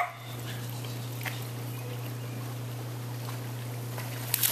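A short loud knock at the start, then a steady low hum under an even outdoor haze. Near the end a dog leaps off the deck into a backyard pool with a splash.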